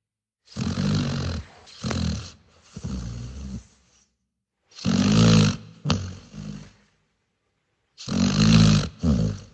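Dog snoring, in runs of two or three snores, each about half a second to a second long, with dead-silent gaps between the runs.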